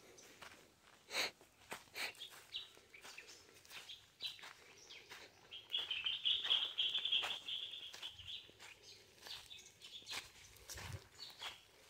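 Footsteps crunching through dry fallen leaves on a dirt path, with birds chirping. A high chattering call starts about six seconds in, lasts about two seconds and is the loudest sound.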